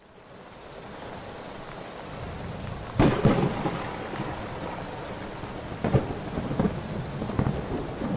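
Thunderstorm: steady rain hiss fades in, then a sudden loud thunderclap about three seconds in, followed by several further rumbles of thunder.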